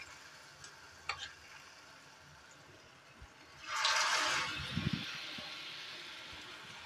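Batter-coated potato pakora lowered into hot oil in a deep frying pan: the faint steady sizzle of frying jumps to a loud sizzle about four seconds in, then fades slowly, with a few soft knocks just after it starts.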